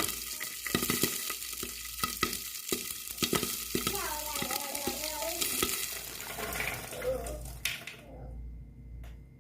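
Popcorn kernels popping in hot oil in a pan: a steady sizzle broken by many sharp pops, which stops abruptly about eight seconds in.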